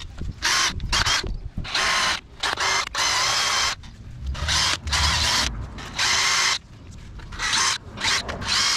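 A DeWalt 20V cordless drill spins a brass wire wheel brush in short spells, its trigger pulled on and off about ten times. The whining wheel scrubs grime and corrosion off the brake caliper bracket where the pad abutment clips sit.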